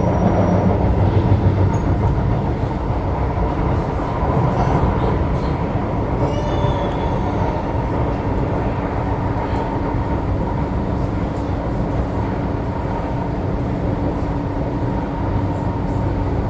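SMRT C751B metro train running between stations, heard from on board: a steady rumble of wheels on track with a constant electric hum, and a brief high squeal about six seconds in.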